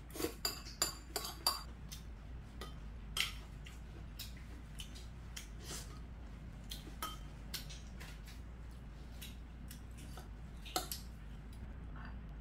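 Metal spoon and chopsticks clinking and scraping against bowls while eating. A quick run of clinks in the first two seconds, a few with a short ring, then scattered taps.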